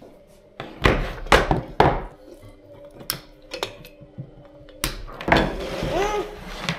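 A series of sharp knocks and thuds on a hard tabletop as a box and a coil of white plastic-sheathed cable are put down and handled, about six in the first five seconds, followed by a longer stretch of rustling handling noise.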